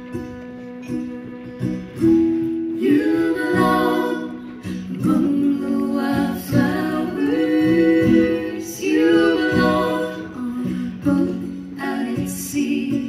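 Live acoustic folk band playing, with acoustic guitar and fiddle. Female vocals come in about two seconds in and carry on over the instruments.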